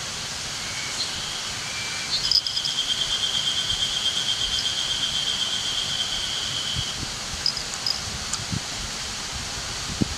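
Woodland ambience with a steady hiss and an insect's high, even trill lasting about four and a half seconds, plus a few short faint chirps.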